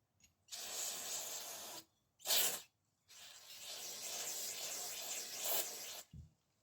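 Degreaser being sprayed in three hissing bursts: a spray of about a second, a short louder one, then a long spray of about three seconds.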